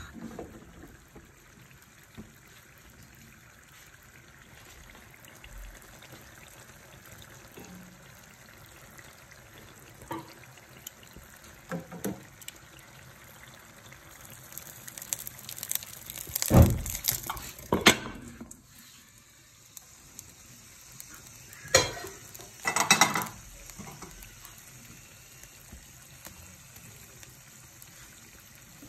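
Chicken karahi sizzling quietly in the pan, with a few sudden louder noises past the middle of the stretch and again a few seconds later.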